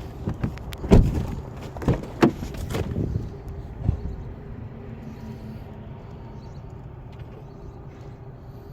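A handful of sharp knocks and clunks, the loudest about a second in, over a steady low hum.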